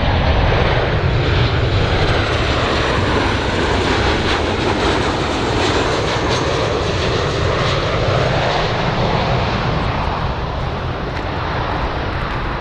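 Boeing 737-800 business jet on final approach, its two CFM56-7 turbofans giving a steady jet noise with a faint high whine, easing slightly near the end.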